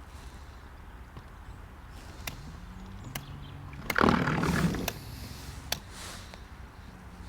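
Small boat's outboard motor running at low speed, its pitch rising slightly about three seconds in. A sudden loud rushing noise lasting about a second starts just after.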